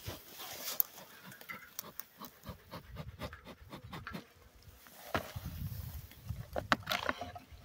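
Bee smoker's bellows being worked, puffing smoke in short puffs, with clicking and rustling from handling over dry grass. The louder puffs come about five and seven seconds in.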